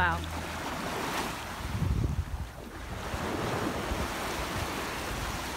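Small sea waves washing in over sand at the shoreline, with wind buffeting the microphone.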